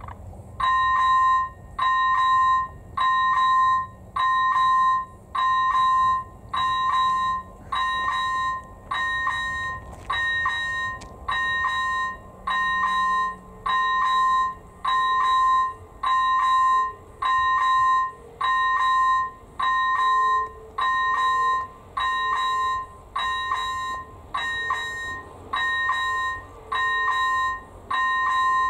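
Electronic level-crossing bell (AŽD ZV01) ringing as the crossing warning switches on. A clear high tone starts about half a second in and repeats evenly, a little over once a second. It signals that a train is approaching.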